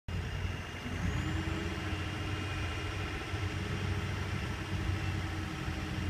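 John Deere 304J compact wheel loader's diesel engine running steadily at a low hum, its pitch rising slightly about a second in.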